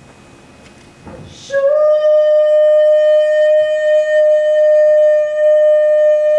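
A single steady, loud musical tone comes in sharply about a second and a half in, sliding up slightly at its start, then holds at one pitch without wavering; before it there is only faint room noise.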